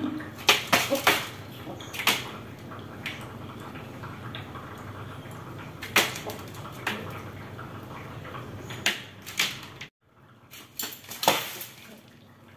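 Rooster pecking at grain on a small metal feed plate and cardboard: irregular sharp taps and clicks, several in quick succession about half a second to a second in, then more spaced out.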